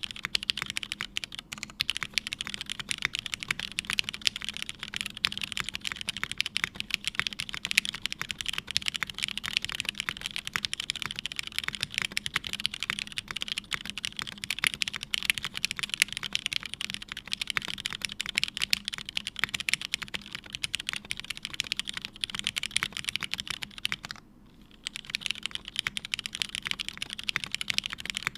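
Continuous fast typing on a custom mechanical keyboard with lubed, filmed Hyperglide black linear switches (70 g springs), half FR4 plate, C3 stabilisers and GMK keycaps. The typing stops for about half a second a little before the end, then starts again.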